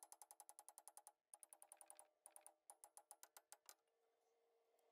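Rapid, even clicking, about ten clicks a second, in four quick runs with short breaks, stopping a little before four seconds in; a faint steady hum follows.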